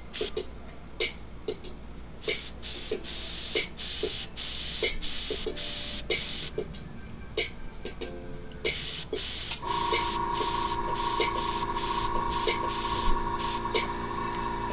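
Airbrush spraying acrylic paint in repeated hissing bursts, some short and some lasting a second or more, as the trigger is pressed and released. A steady hum joins about ten seconds in.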